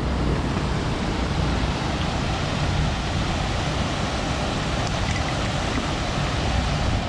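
Steady rush of flowing stream water, an even noise with no break.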